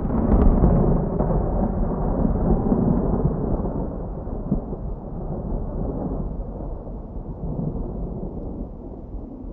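Rolling thunder: a long low rumble that slowly fades away.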